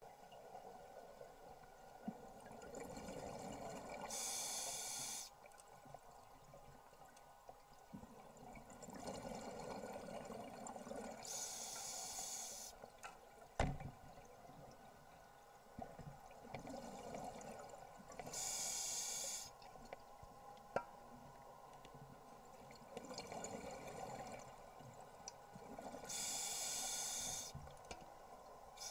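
Scuba diver breathing through an open-circuit regulator underwater: four slow breaths about seven seconds apart, each a bubbling exhale and a hissing inhale of about a second. One sharp knock about halfway through.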